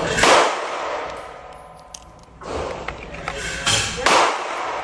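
A few gunshots, each followed by a short echo, with two shots close together near the end.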